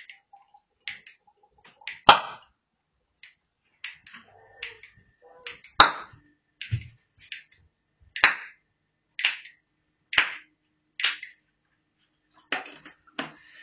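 Hydrogen-oxygen (HHO) gas from an electrolyser being lit with a piezo igniter: sharp clicks and small gas pops, about a dozen, irregularly spaced.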